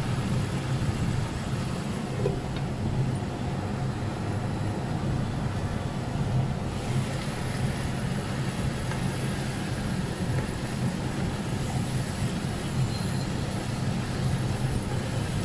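A steady low rumble with a fainter hiss over it, as a pan of rui fish and potato curry cooks on the stove.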